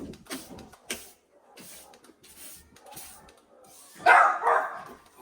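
A dog gives a short bark near the end, after a few seconds of light clicks and rustling.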